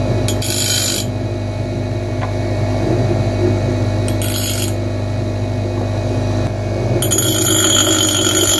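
An old Italian bench grinder's electric motor runs with a steady hum while a screwdriver tip is ground against its wheel three times: briefly near the start, again about four seconds in, and for a longer stretch near the end.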